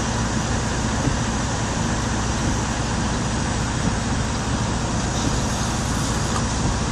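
A semi truck's engine idling steadily, heard from inside the cab: a low, even hum under a constant hiss.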